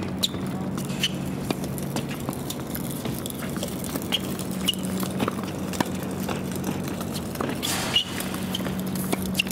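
Tennis rally: sharp pops of racket strings hitting the ball and the ball bouncing on a hard court, the loudest hit about eight seconds in from the near player's forehand. A steady low hum runs underneath.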